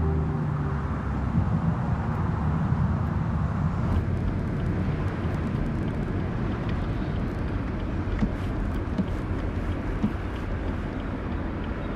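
Steady road-traffic rumble of vehicles driving, with a few faint clicks. Background music fades out about a second in.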